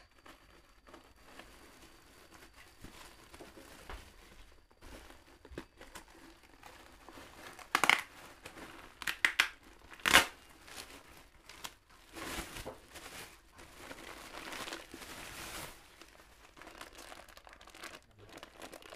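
Clear plastic wrap crinkling and rustling as it is handled and pulled off a new motorcycle helmet, soft at first and louder in several stretches through the middle.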